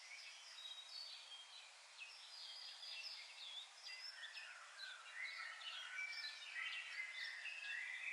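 Several small birds chirping and singing at once in short, overlapping notes that grow busier in the second half, faint over a light steady hiss.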